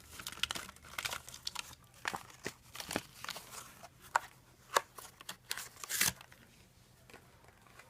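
A Hot Wheels blister pack being opened by hand: the card and plastic bubble crinkling and tearing in irregular crackles, dying down about six seconds in.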